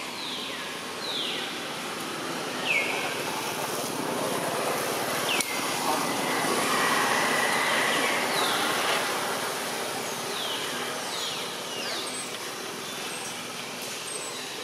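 Steady outdoor background noise with a passing-traffic character, swelling for a few seconds in the middle. Over it a bird repeatedly gives short, falling whistled notes.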